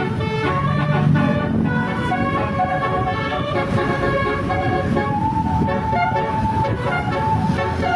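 Basuri multi-tone telolet horn playing a melody, held notes stepping from one pitch to the next, over a low rumble.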